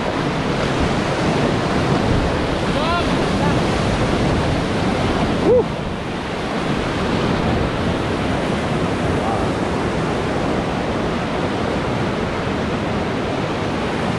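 River whitewater rushing steadily around a raft. A faint rising-and-falling call comes about three seconds in, and a short, louder one about halfway through.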